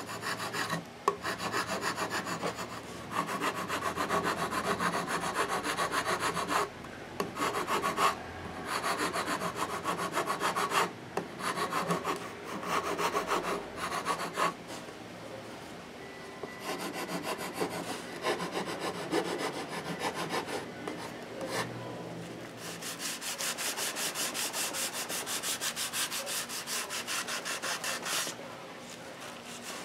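Hand-sanding the edges of plywood: abrasive paper rubbed back and forth on the wood in quick short strokes, with a few brief pauses. About three-quarters of the way through, the strokes turn higher and hissier.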